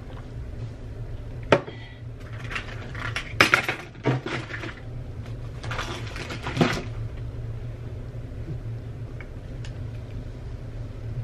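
Clinks and rattles of small hard objects being handled, in short bouts from about two to five seconds in and again around six seconds, over a steady low hum.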